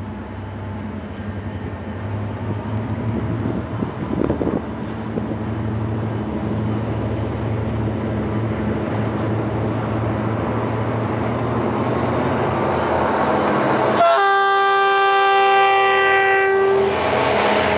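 Diesel freight locomotives pulling a loaded ore train approach with their engines running, growing steadily louder. About fourteen seconds in, the horn sounds one long blast of about three seconds as the lead units come alongside, followed by the rumble of the train passing close.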